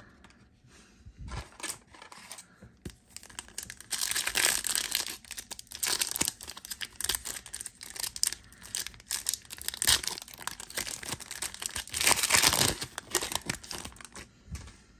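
Foil trading-card pack being torn open and crinkled by hand. The crackling comes in louder bursts about four seconds in and again around twelve seconds in, with smaller crinkles and clicks between.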